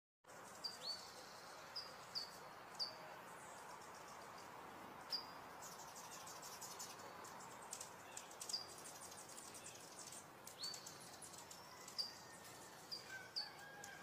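Hummingbirds giving repeated sharp, high chip notes, with stretches of rapid dry chattering. Under them runs the faint, steady trickle of a small bubbling fountain.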